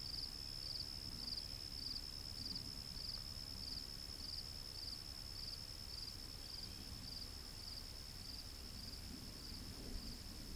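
Faint insect chorus: a steady high trill with a short chirp repeating a little under twice a second, the chirps fading out over the last few seconds.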